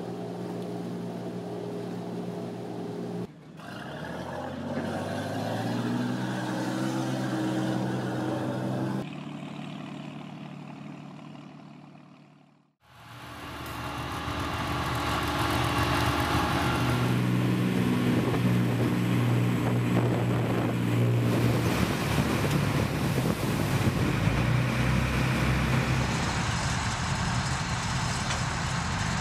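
Heavy military vehicle engines running in several short shots that change abruptly: a steady drone, then an engine shifting up in pitch, a fade into a brief silence about 13 seconds in, then a louder engine running steadily.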